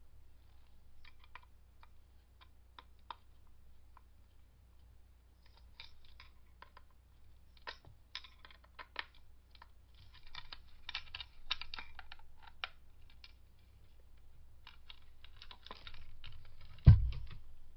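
Small clicks, scrapes and rattles of a screwdriver working the tiny screws on a Spencer logger's tape case, with the metal case being turned in the hand. A single thud near the end is the loudest sound.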